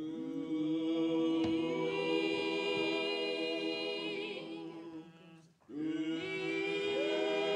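Background music of voices singing long held notes in harmony, a cappella, with a short break a little past halfway before the next chord.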